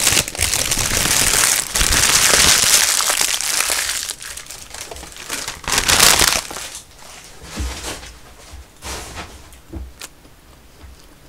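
Paper burger wrapper crinkling and rustling as it is handled and unwrapped close to the microphone. It is loudest and continuous for the first four seconds, with another burst around six seconds and a few softer rustles after.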